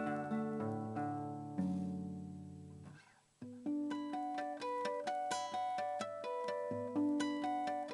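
Acoustic guitar playing a slow fingerpicked instrumental piece. A phrase rings out and fades away about three seconds in, then the playing resumes with a new run of plucked notes.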